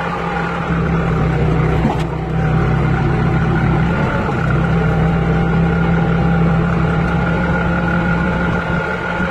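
Lindner Geotrac 60 tractor's diesel engine running steadily under load as it drives through fresh snow, heard from the driver's seat. There is a brief knock about two seconds in.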